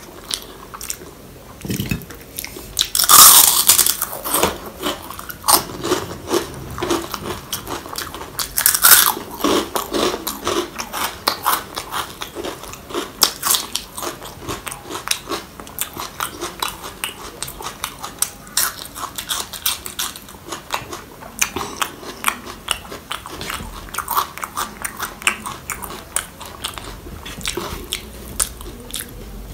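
Close-miked eating: a person chewing rice and rajma eaten by hand, with many small wet chewing clicks and loud crunching bites about three and nine seconds in.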